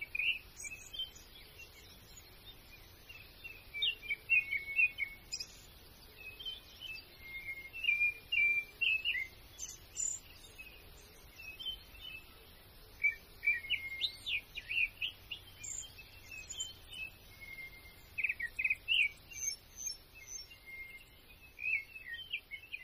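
Small birds chirping and twittering, many short calls following one another closely over a faint steady background hiss.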